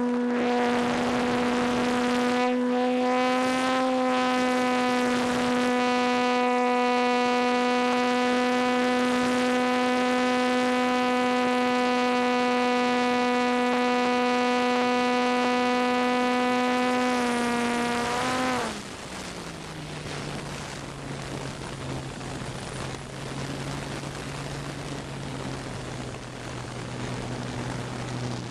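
RC T-28 model airplane's motor and propeller, heard close up from its onboard camera, running at a steady high-power whine. About two-thirds of the way through it is throttled back: pitch and level drop to a low idle as the plane comes down over the field to land.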